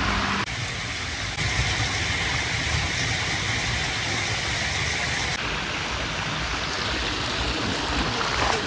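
Creek water running steadily over a concrete culvert, an even rushing noise that shifts in tone a few times.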